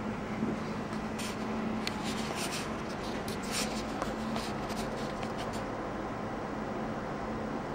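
Steady hum and air noise of a broadcast control room full of running equipment, with a run of soft, scratchy rustles between about one and five and a half seconds in.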